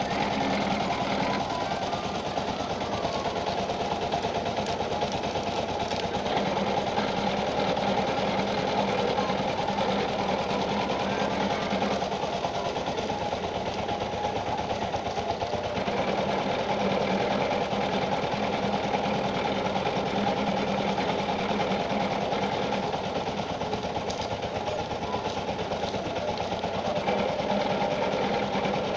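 Powered sugarcane juice roller machine running steadily with a rapid, even mechanical rattle as cane stalks are fed through its rollers.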